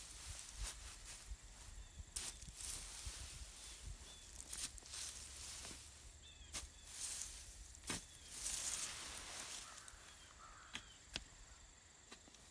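Leaves rustling, with irregular sharp snaps and clicks as peppers are picked by hand off the plant. A few faint short chirps come in now and then.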